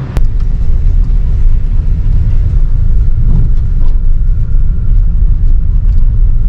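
A car on the move: a loud, steady low rumble of road and wind noise.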